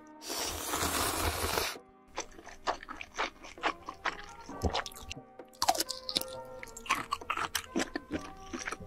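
Close-miked mukbang eating: a loud slurp of spicy ramyeon noodles lasting nearly two seconds, then wet chewing with many quick crunches and smacks, over background music.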